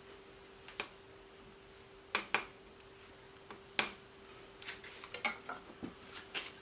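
Metal hand tools clinking and clicking: a few sharp separate clinks, then a quicker run of smaller ones near the end.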